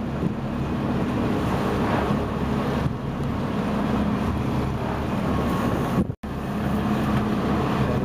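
Sportfishing boat's engine running steadily under a haze of wind and sea noise. The sound cuts out for an instant about six seconds in.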